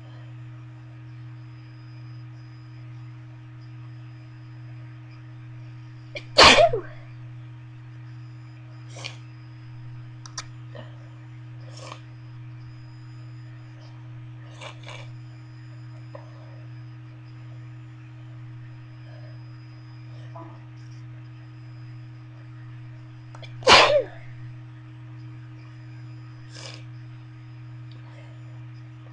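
A person sneezing twice, once about six seconds in and again near the end, both sneezes induced by tickling the inside of the nose with a bobby pin. A few faint short sounds fall between them, over a steady low hum.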